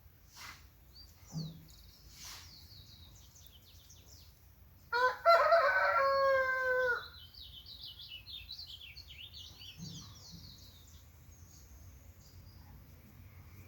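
A rooster crows once, about five seconds in, a loud two-second call that drops slightly at the end, and smaller birds chirp quickly right after it.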